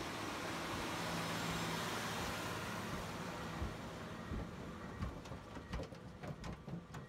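A John Deere four-wheel-drive tractor's diesel engine running as it tows a Landpac impact compaction roller over dirt, with a steady rushing noise. From about four seconds in, irregular knocks and crunches of the roller and tyres on the soil come through as it passes close by.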